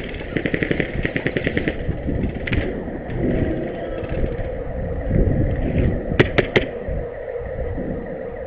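Airsoft rifle firing on full auto, a fast even rattle of shots that stops about two seconds in. Around six seconds in come three sharp clicks in quick succession.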